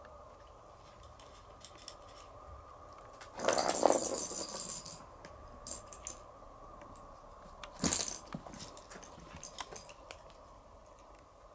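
Small hard objects rattling and clinking: a loud clattering rattle lasting about a second and a half a third of the way in, then a single sharp knock about two-thirds in, with faint clicks between.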